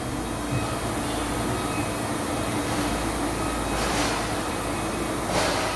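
Packaging machinery running with a steady mechanical hum, and two short bursts of air hiss, one about four seconds in and one near the end.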